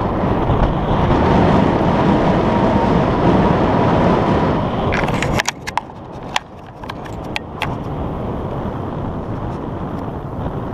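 A loud, even rushing noise that stops abruptly about five seconds in, then sharp metallic clicks and clinks of rope-rigging hardware and carabiners being handled.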